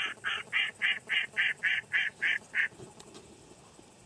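Duck call sounding a steady series of mallard-style quacks, about four a second, that stops about two-thirds of the way through; the hunter is calling to lure ducks in.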